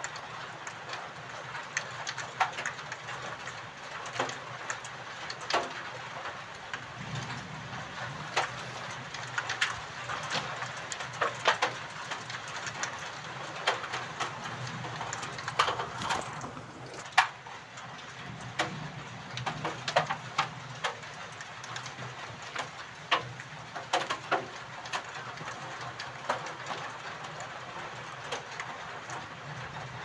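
Steady rain, with many separate drops and drips tapping sharply throughout, over a low rumble that swells and fades.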